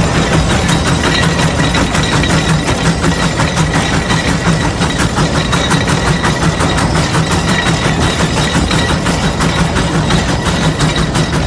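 Case 150 steam traction engine working under load, pulling a gang plow, with a fast, even beat of exhaust chuffs and mechanical knocking.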